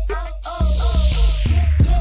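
Background music with a deep, sustained bass and a quick, regular hi-hat beat. About half a second in, a hissing whoosh sweeps downward in pitch.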